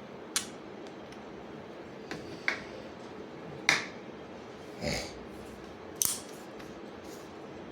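Small steel driver bits clicking against a magnetized bit holder: about six sharp, separate clicks, with one duller knock about five seconds in.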